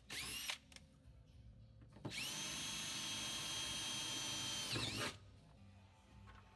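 Cordless drill boring holes in a Sprinter van's steel body for rivnuts. There is a short burst just after the start, then a steady run of about three seconds whose whine spins up at the start and winds down at the end.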